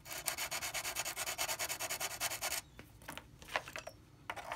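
Flat file rubbing quickly back and forth over small ceramic model bricks, sanding them down level. The strokes stop about two and a half seconds in, a couple of light clicks follow, and the rubbing starts again near the end.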